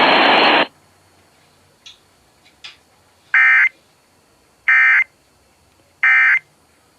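Emergency Alert System End-of-Message data bursts received over the radio: three short, loud, buzzy digital squawks about 1.3 seconds apart, signalling the end of the alert test. Before them a loud hiss cuts off within the first second.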